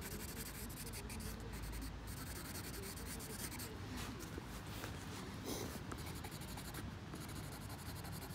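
Soft charcoal pencil scratching across paper in quick drawing strokes.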